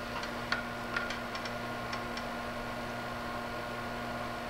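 A few light ticks of a wire and soldering iron tip touching an LED strip's solder pads during the first couple of seconds, over a steady low electrical hum.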